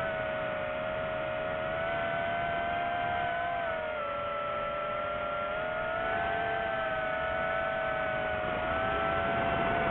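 DJI FPV drone's motors and propellers whining in flight, several close pitches that drift slightly with throttle, dipping about four seconds in and rising again later.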